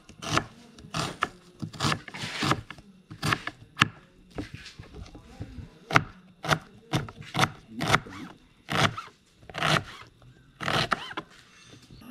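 Kitchen knife chopping small onions (shallots) on a cutting board: irregular knife strokes, roughly two a second, some with a short scrape.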